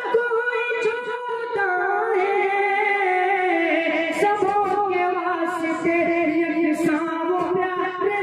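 A man singing a sad ghazal into a microphone, drawing out long, wavering held notes.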